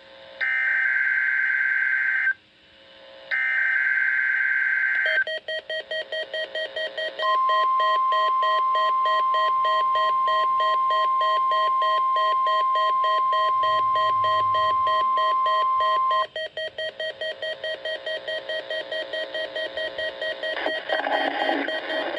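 NOAA Weather Radio Required Weekly Test signal. Two screechy bursts of SAME digital header tones come a second apart, then a steady single-pitch 1050 Hz weather radio warning alarm tone is held for about nine seconds and cuts off.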